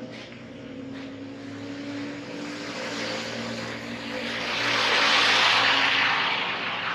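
Diesel skip-loader truck driving past: its engine hum and tyre noise build as it comes up from behind, are loudest about five seconds in, then fade as it pulls away.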